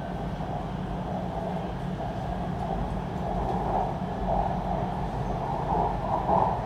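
MRT Kajang Line metro train running between stations, heard from inside the carriage: a steady rolling rumble over a low hum.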